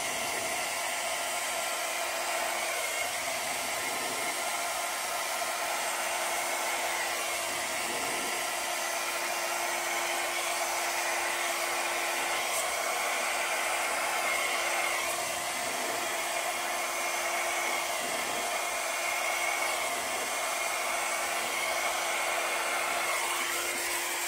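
Handheld hair dryer blowing steadily, a constant rush of air with a steady hum beneath it, as it pushes wet acrylic paint across a wooden board in a Dutch pour.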